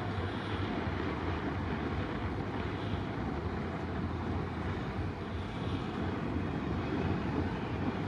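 Steady outdoor background rumble with a constant low hum and no distinct events.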